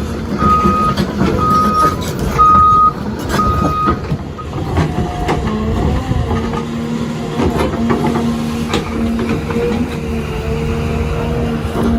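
A machine's reversing alarm beeps four times, about once a second, over a running engine and clattering knocks. From about five seconds in, the engine settles into a steady hum.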